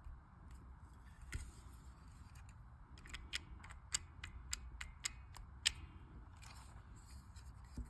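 Stapler being handled: faint, sharp, irregular clicks. One comes about a second and a half in, then a quick run of a dozen or so a few seconds later, over a faint low hum.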